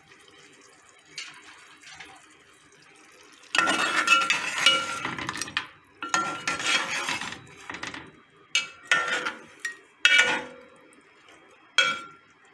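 Metal ladle stirring and scraping through pieces of boiled mutton in a metal cooking pot, knocking and clinking against the pot so that it rings briefly. It starts after a quiet first few seconds and comes in several bouts, ending in a few single sharp clinks.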